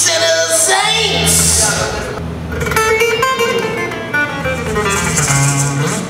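Guitar playing short phrases of notes at a rock band's sound check, with low sustained notes underneath and a voice briefly near the start.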